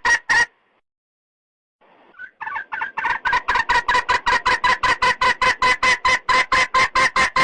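Red junglefowl hen calling to a cock: a fast run of short, loud, repeated notes, about five a second. It stops about half a second in, falls silent for over a second, then starts again and runs on.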